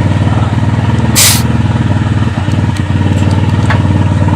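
Steady hum of a running motor, with a short sharp hiss of air about a second in.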